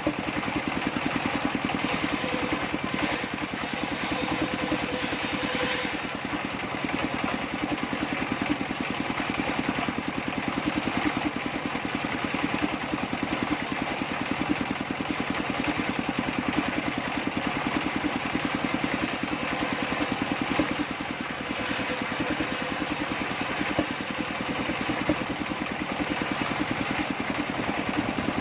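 Circular saw table with a Pilana blade running steadily, its drive giving a rapid, even pulsing.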